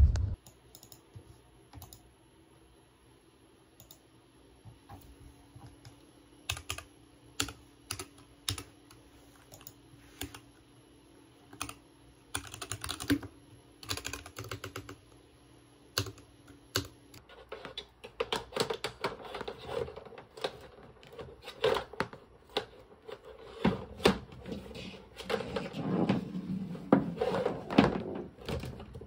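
Taps and clicks of typing on a laptop keyboard, scattered at first over a faint steady hum. From a little past halfway they turn denser and heavier, mixed with knocks from handling the laptop and cables.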